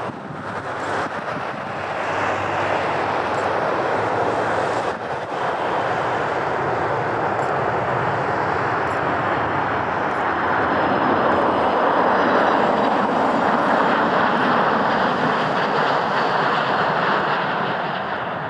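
Jet airliner engines passing close by, a steady rushing noise that grows to its loudest about twelve seconds in and then eases off.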